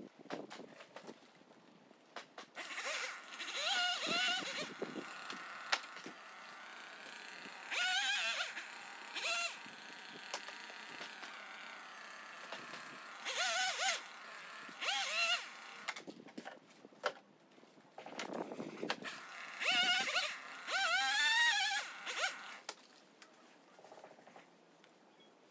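Chainsaw revving and cutting in a series of short bursts, about eight, each a second or two long, its pitch wavering as it works.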